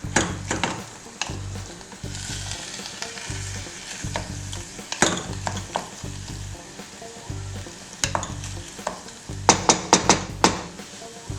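Minced meat and onion frying in oil in a pan, sizzling, while a spoon stirs and scrapes against the pan, with a quick run of clicks about two thirds of the way through.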